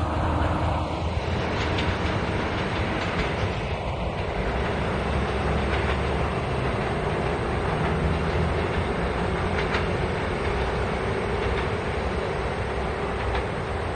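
Taiwan Railways DMU2800 diesel multiple unit pulling away down the line: a steady low drone with wheel and rail noise and a few scattered clicks over the rail joints.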